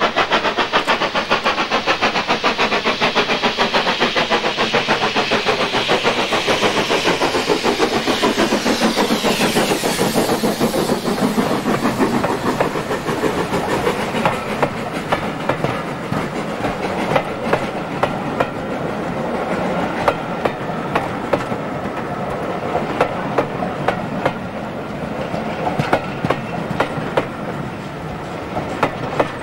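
S&DJR 7F 2-8-0 steam locomotive No. 53809 running toward and past under steam, with a quick, steady exhaust beat that sweeps down as it passes about ten seconds in. Its coaches then roll by, wheels clicking regularly over the rail joints.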